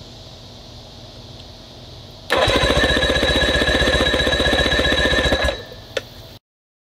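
Electric starter cranking a Johnson 40 hp two-stroke outboard with its spark plugs out, a fast even chug with a steady whine, for about three seconds. The engine turns over without firing while a compression gauge takes its reading. A single sharp click follows just after the cranking stops.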